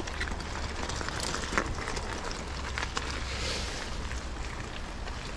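Mountain bike being ridden on a trail, picked up by a bike- or rider-mounted action camera: tyres crackling over the surface with a steady low rumble and scattered small clicks.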